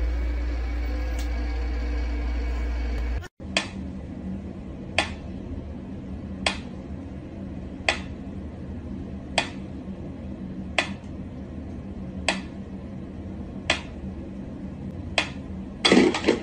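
A mechanical pendulum metronome ticking slowly and evenly, one sharp click about every second and a half. Near the end there is a louder clatter. Before the ticking begins, a few seconds of steady low rumble.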